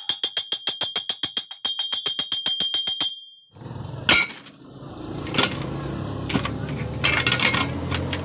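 Fast, evenly spaced ticking percussion with a steady high tone, about nine ticks a second, for about three seconds. It cuts off and gives way to a steady crackling hiss over a low hum with a few sharp cracks, typical of an electric welding arc burning.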